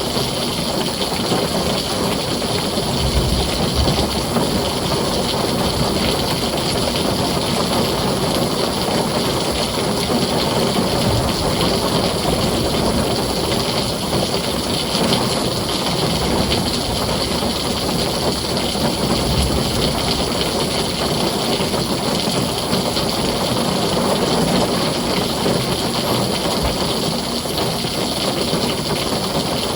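Heavy rain drumming steadily on a tin roof, with a few brief low rumbles of thunder now and then.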